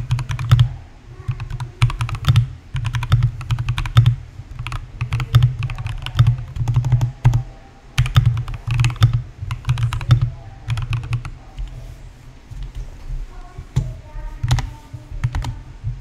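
GMMK mechanical keyboard with lubed Tangerine linear switches being typed on fast, in quick runs of keystrokes. The keystrokes thin out and become sparser over the last few seconds.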